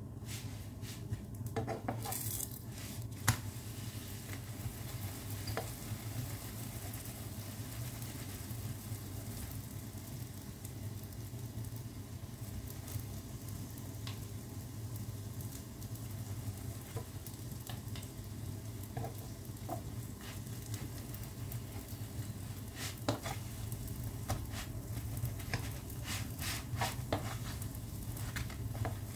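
Chapati frying on a hot oiled pan, a steady sizzle over a constant low hum, with scattered clicks and knocks of a utensil on the pan, a cluster about two seconds in and more in the last six seconds.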